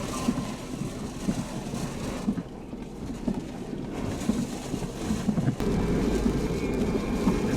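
Moving vehicle running on the road, a steady rumble and hiss of road and engine noise that gets louder about five and a half seconds in.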